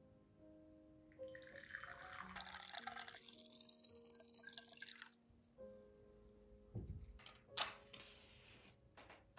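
Tea poured from a porcelain teapot into a porcelain cup, a stream of liquid splashing into the cup for about four seconds. Near the end, a soft thump and a sharp click.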